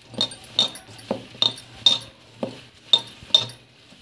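Bangles on a wrist clinking against each other and the steel bowl as a hand mixes dry ragi flour with chopped drumstick leaves and onion: about eight sharp clinks, roughly two a second, some with a short high ring.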